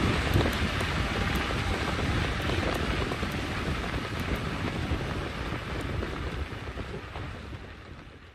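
Steady rushing noise of wind on the microphone and e-bike tyres rolling along the trail while riding. It fades out near the end.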